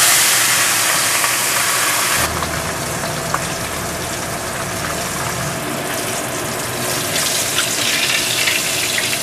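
Whole fish deep-frying in hot oil in a wok: a steady sizzle. The sizzle is brightest for the first two seconds, then drops suddenly and a low hum joins it for a few seconds.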